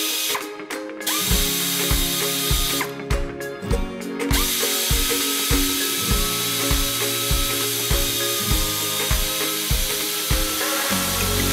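Quarter-inch air ratchet fitted with a drill chuck, driving a drill bit through a guide bushing into a broken exhaust manifold stud in an LS cylinder head. It runs in two short bursts, then runs steadily from about four seconds in, with background music underneath.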